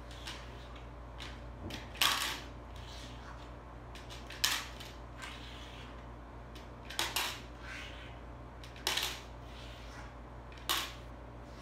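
Pennies dropped one at a time into a small coin bank, each landing with a sharp clink every second or two, once as a quick double clink.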